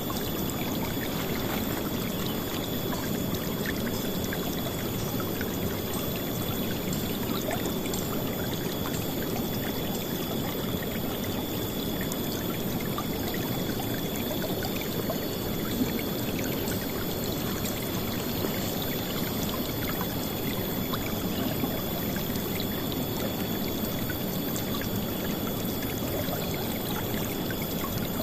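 River water flowing and splashing, a steady, unbroken rush.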